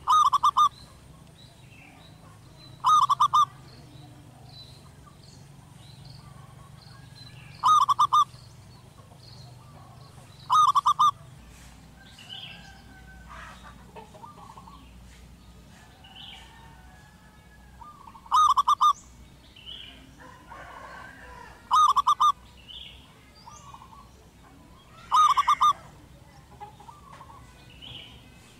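Zebra dove singing: seven short, rapid trilled coo phrases, each under a second, spaced a few seconds apart, with faint chirps of other birds between them.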